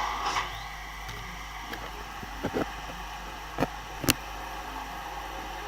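Steady hum and air noise of a lift cab travelling between floors, with a few faint clicks in the second half.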